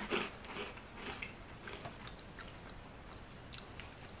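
Quiet chewing of a crunchy puffed corn snack, with faint irregular crunches that thin out after about two seconds.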